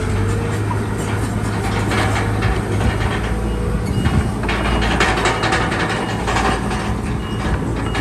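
Crawler bulldozer at work: its diesel engine runs steadily while the steel tracks clank and rattle unevenly throughout.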